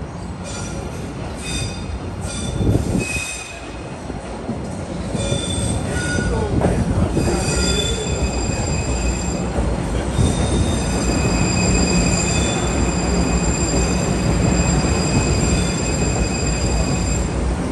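Siemens-built MBTA Blue Line subway train pulling in along the platform. Several steady high-pitched squeals, strongest from about five seconds in, ride over the train's running rumble, which grows louder as it draws close.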